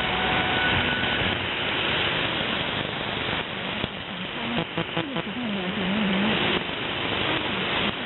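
Shortwave receiver tuned to 14.5 MHz, giving a dense rushing hiss of noise cut off above about 4 kHz. A faint warbling tone rises and falls through it about five seconds in. The signal is logged as either Sound of Hope or a jammer.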